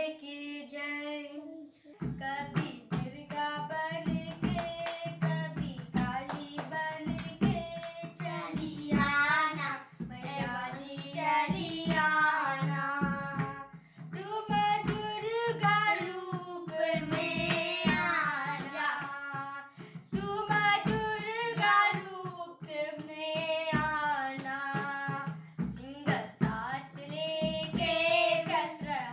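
A boy singing a song to tabla accompaniment. The tabla strokes come in about two seconds in and keep up a rhythm under the voice.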